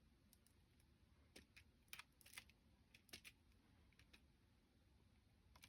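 Near silence with a few faint, light clicks and taps from small paper pieces being handled with tweezers and glue, mostly in the middle of the stretch.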